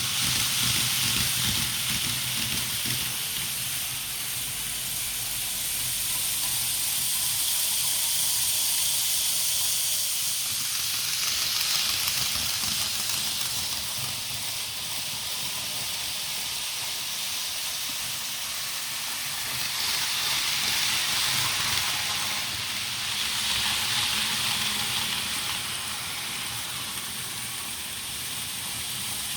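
Electric train running on the rails: a continuous hiss of wheel and rail noise over a low rumble, swelling louder twice.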